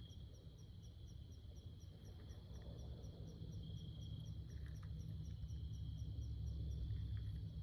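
Insects chirping outdoors: short high chirps repeating evenly a few times a second over a steady high insect drone, with a low rumble underneath that grows louder in the second half.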